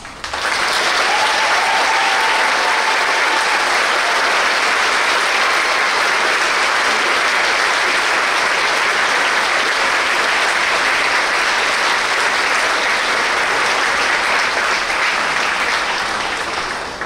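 A large auditorium audience clapping. The applause starts abruptly, holds steady, and tails off near the end.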